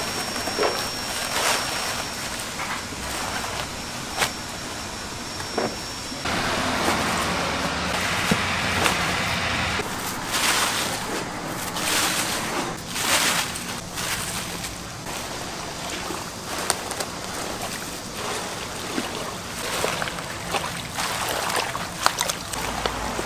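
Napa cabbage being salted for kimchi: the leaves rustle and crunch as gloved hands pull them apart and press them down. In the middle come several bursts of gritty hissing as coarse salt is scattered over the leaves in a plastic tub. A steady background hiss runs underneath.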